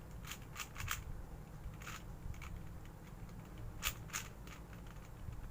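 Plastic clicks of a 4x4 Rubik's cube being turned by hand: irregular sharp clicks, several in quick runs with short pauses between.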